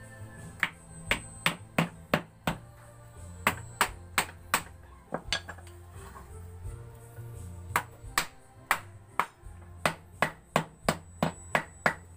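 Hammer striking a wooden piece in runs of sharp knocks, about two to three a second with short pauses between runs.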